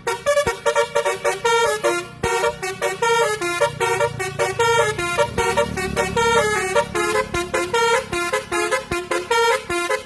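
Basuri telolet horn playing a fast melody, one quick note after another without a break.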